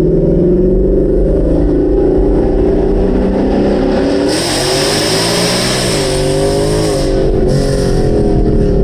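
2018 Mustang GT's 5.0 Coyote V8 running loud through a free-flowing exhaust with Borla S-Type axle-back mufflers, its pitch dipping a little past the middle and climbing again. A hiss joins about four seconds in.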